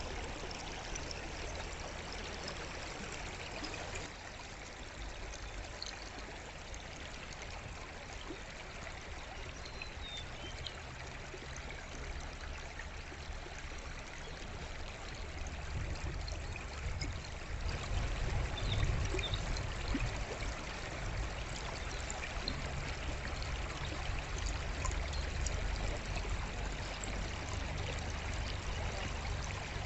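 Forest stream flowing steadily, with a few faint bird chirps. A deeper low rumble swells up about halfway through and stays.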